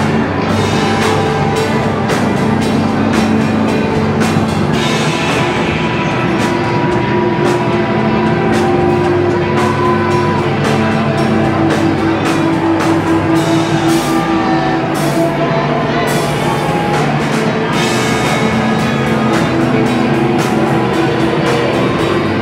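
Hardcore punk band playing loud and fast: distorted guitars and steady pounding drums.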